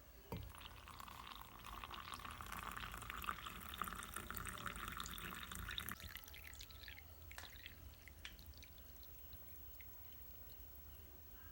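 Water running and splashing into a vessel for about five and a half seconds, then stopping abruptly; a few light clicks and knocks follow.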